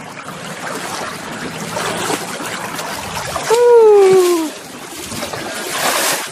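River water splashing and sloshing right against the microphone. About three and a half seconds in, a person's voice calls out once with a long falling pitch, the loudest sound.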